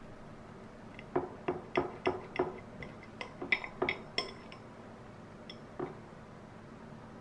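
Steel knife and fork cutting French toast on a ceramic plate: a run of light clinks, about three a second, for a few seconds, then one more clink near the end.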